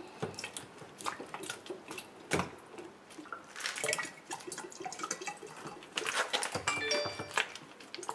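Water gurgling and glugging in an upturned plastic soda bottle as it drains, with air bubbles rising through it in irregular pops and drips.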